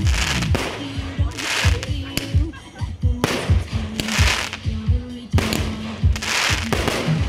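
Aerial fireworks bursting and crackling in repeated hissing bursts, over music with a steady bass line and beat.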